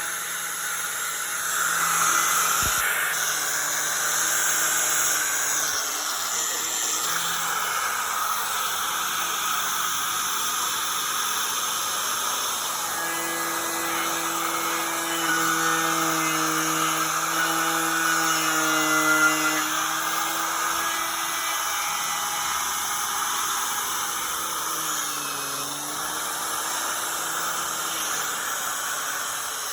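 Milwaukee 11-amp 4-1/2 in. corded angle grinder running steadily with a twisted-knot wire wheel, scrubbing paint and rust off a metal door. Its motor pitch dips briefly near the end.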